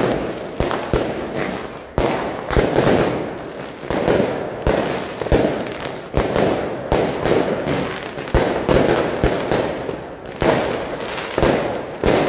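Aerial fireworks going off in rapid succession: a long run of sharp bangs, sometimes less than a second apart, each trailed by crackling.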